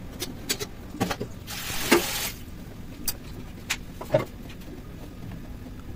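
A scattering of light clicks and knocks around an aluminium pressure cooker on a gas stove, with one short hiss about a second and a half in.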